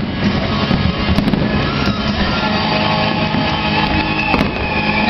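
Aerial fireworks bursting and crackling, with a few sharp bangs among them, over music playing at the same time.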